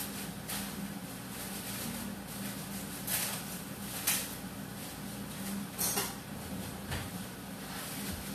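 Dishes and utensils clinking and knocking several times over a steady low hum and hiss.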